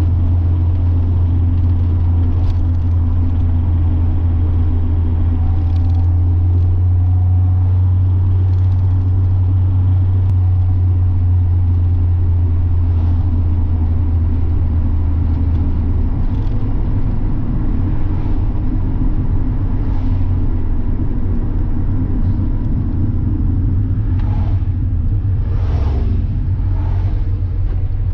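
NA Mazda Miata's inline-four engine and exhaust droning steadily while cruising, heard from inside the car; about halfway through the steady note breaks up into a rougher, uneven rumble.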